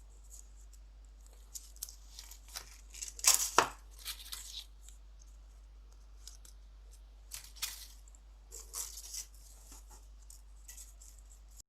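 Mini glue dots being peeled from their backing and pressed onto thin vellum paper strips: scattered short peeling and rustling sounds with small clicks, the loudest about three and a half seconds in and another cluster a few seconds later.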